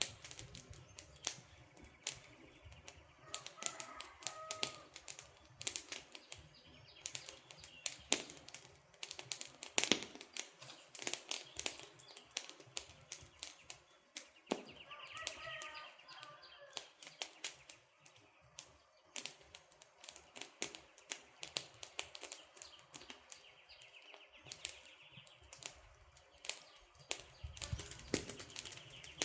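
Wood campfire crackling, with a steady run of irregular sharp pops and snaps from the burning logs. A bird calls briefly twice, a few seconds in and about halfway through.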